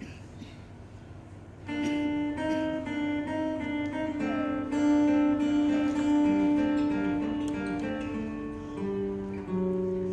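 Solo fingerstyle acoustic guitar playing a melody with bass notes, soft at first, then picking up with firmly plucked notes about a second and a half in.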